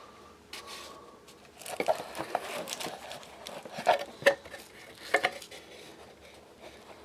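Handling noise from a small clear plastic bag of metal parts being picked up and turned over in the hand: scattered light clinks and crinkles, in a few short clusters.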